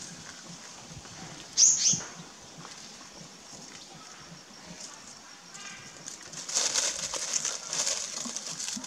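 A macaque gives one short, high squeal that falls in pitch about a second and a half in. Later comes a few seconds of crackling rustle of dry leaves.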